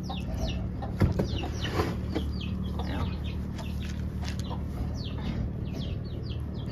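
Chickens peeping: many short, high chirps, each falling in pitch, over a steady low hum, with a knock about a second in.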